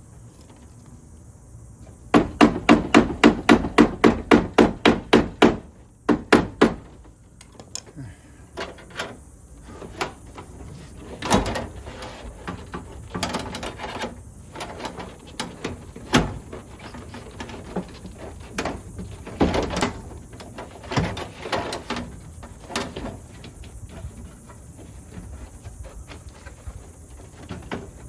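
A fast run of about a dozen sharp taps, roughly four a second, starting about two seconds in and lasting a few seconds, like a small hammer striking. Scattered single knocks and clicks of hand-worked parts follow.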